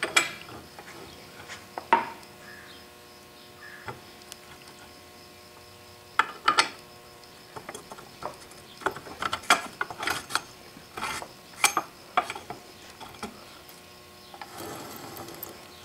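Scattered metallic clicks and knocks, busiest in the middle, as the cluster gear of a 1930 Ford Model A transmission is worked into place by hand in its cast iron case and the countershaft is slid through it.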